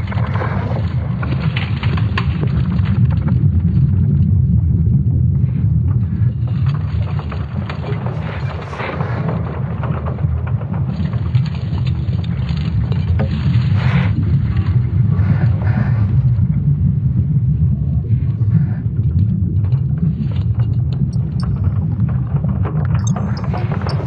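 Sonification of Earth's magnetic field made from ESA Swarm satellite measurements: a deep, steady rumble with scattered crackles and rustling above it.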